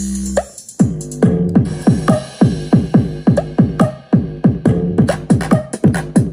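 Electronic dance music with a drum-machine beat, played back through a Tonor 50 W Bluetooth PA speaker during a sound test. It starts with a held note for about half a second, then a quick run of notes that each drop in pitch, about four a second.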